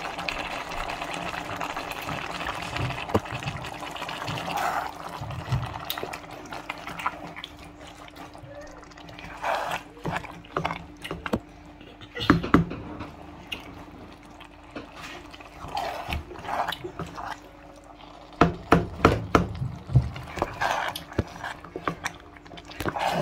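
A spoon working through a pot of thick egusi soup with fish in it, with wet liquid sounds and irregular sharp clicks and knocks against the pot, coming thickest near the end.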